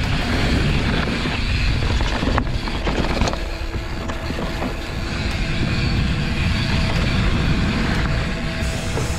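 Continuous rumble of a mountain bike ridden fast along a trail, wind buffeting the microphone over the noise of tyres on dirt, with a few sharp knocks and rattles from the bike.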